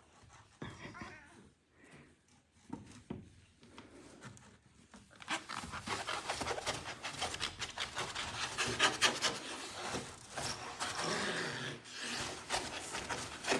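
Quick scratching and rubbing strokes, faint and scattered at first, then louder and continuous from about five seconds in.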